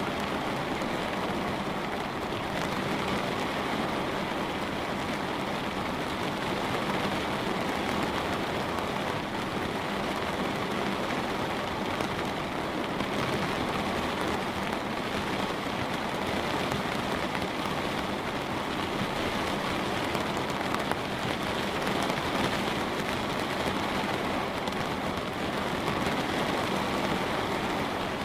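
Light rain falling steadily and pattering on a window, a continuous even hiss with faint scattered drop ticks.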